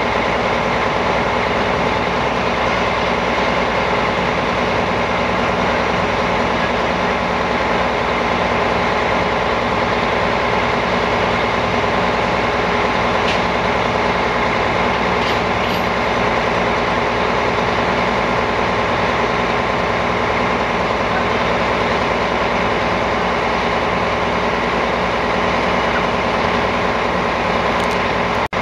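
Heavy recovery truck's diesel engine running steadily, powering its crane as it lifts an overturned tipper lorry.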